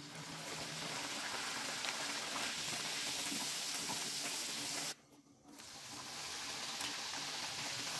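Bhatura dough frying in hot oil in a pan, a steady sizzle that swells as the dough goes in. It breaks off for a moment about five seconds in and swells again as the next bhatura is slid into the oil.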